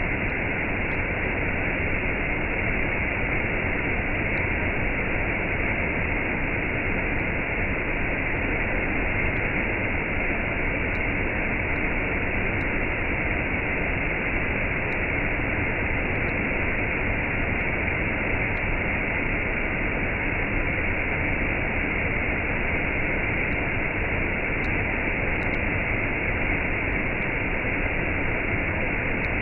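Waterfall cascade: a steady, even rush of falling water.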